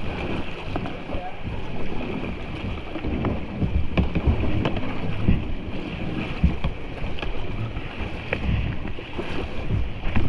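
Wind buffeting the microphone over rushing creek water as a kayak runs down the creek, with scattered knocks from the boat and paddle.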